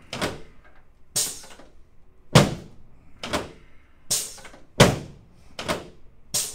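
A series of about eight sharp thumps, roughly one a second, as a chiropractor thrusts down with both hands on a face-down patient's lower back and pelvis, adjusting the sacroiliac joints on a padded adjusting table.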